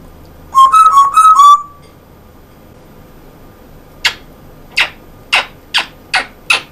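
African grey parrot whistling a quick run of short notes. A couple of seconds later comes a steady series of short breathy, hissing sounds, about two a second.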